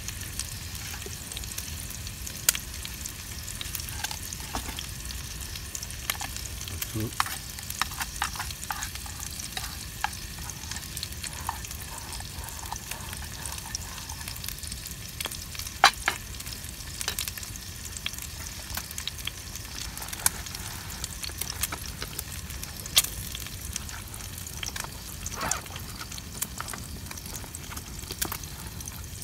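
Food frying in a pan: a steady sizzle with sharp pops and crackles scattered throughout.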